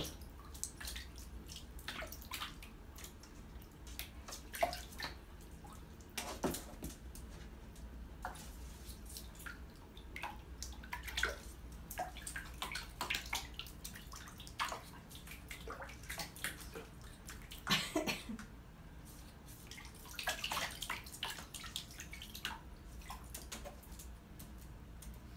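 Small, irregular splashes and drips of shallow bathwater as two ferrets move and paddle around a bathtub, over a low steady hum.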